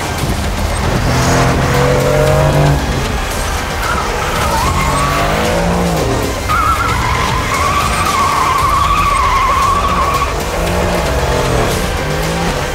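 Mercedes-AMG GT R's twin-turbo V8 revving up and down as the car drifts, with the rear tyres letting out a wavering squeal from about six and a half to ten seconds in.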